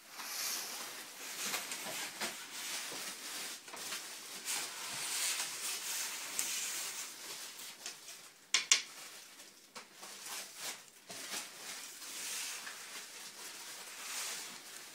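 Wood fire crackling and hissing inside a bread oven, with scattered small ticks. A single sharp knock sounds about eight and a half seconds in.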